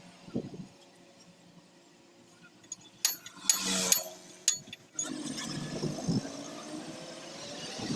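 Scattered sharp metallic clicks and clinks of hand tools on metal, with a short scraping burst just before four seconds in. A steadier background noise sets in about five seconds in.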